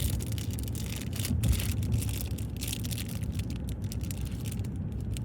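Irregular rustling and small clicks from a mesh marble fidget toy and its packaging being handled, over a steady low hum.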